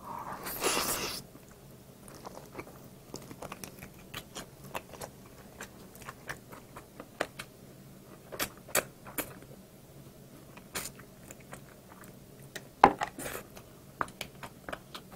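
Close-miked chewing and biting of barbecued chicken. A loud bite in the first second, then soft, irregular mouth clicks and smacks as it is chewed, and another loud bite about thirteen seconds in.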